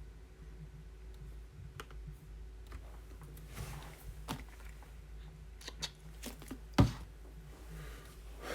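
Typing and clicking on a computer keyboard: scattered irregular key taps, with one louder knock about seven seconds in, over a steady low hum.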